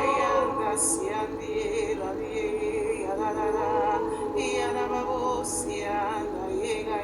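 A voice singing in tongues: a flowing, wordless-sounding melodic line, with short hissing consonants about a second in and again around five and a half seconds.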